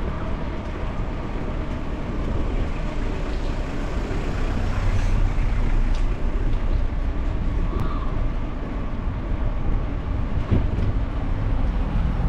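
Steady low rumble of a bicycle rolling along a paved sidewalk, tyre noise mixed with wind on the camera's microphone, with a few light knocks from bumps.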